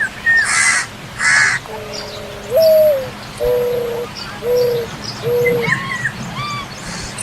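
Mixed bird calls: two harsh, caw-like calls in the first second and a half, then a series of low hooting coos (one long rising-and-falling note, then three short ones), with thin chirps and whistles from smaller birds over them.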